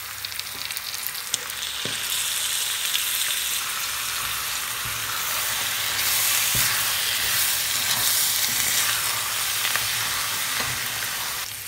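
Minced beef and vegetable ragu sizzling in a frying pan as freshly added canned tomatoes are stirred in with a wooden spoon. The sizzle swells after the first couple of seconds, with a few light knocks near the start.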